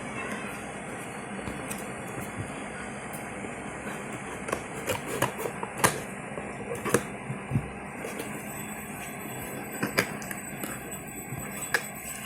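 Earphone packaging being handled during unboxing: a scattering of sharp clicks and taps, mostly from about four to seven seconds in and again around ten seconds, over a steady background noise.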